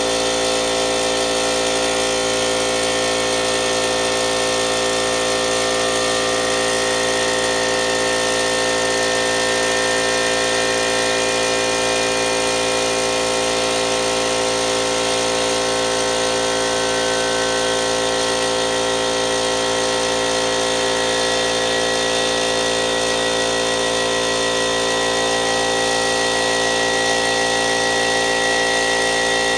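McGraw 20-gallon, 1.6-horsepower air compressor running steadily, its motor and pump filling the tank.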